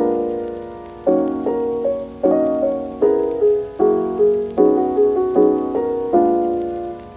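Background lofi music: soft electric-piano chords struck about once a second, each fading before the next.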